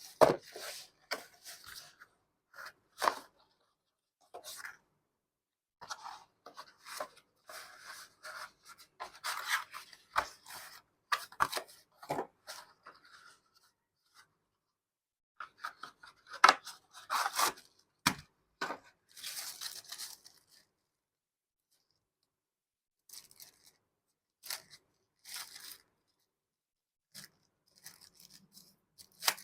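Product packaging being opened and handled: irregular rustling, scraping and tearing noises with sharp taps and clicks, broken by short quiet pauses.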